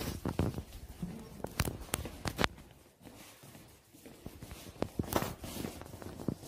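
Footsteps and scattered sharp clicks on a hard tiled floor, coming in short irregular clusters with a quieter pause in the middle.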